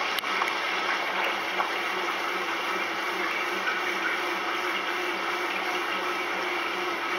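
Maytag commercial top-load washer running in its final spin: a steady hum and rush of water, with a faint pulse about twice a second.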